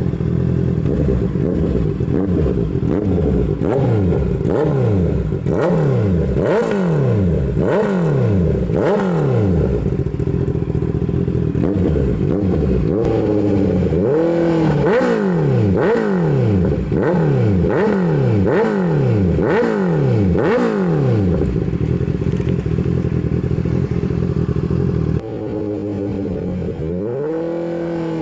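Honda CBR650's inline-four engine through an SC-Project aftermarket exhaust, revved in repeated quick blips with the pitch rising and falling about once a second, with crackles and pops on the overrun. Near the end it gets quieter and the revs come more slowly.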